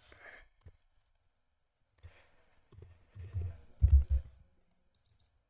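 Typing on a computer keyboard and clicking a mouse: scattered taps with low thumps, bunched together about three to four seconds in.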